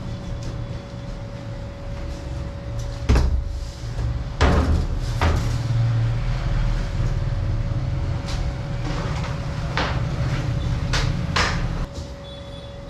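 A machine running with a steady whine over a low hum, with a series of sharp knocks and clunks; the low hum drops off near the end.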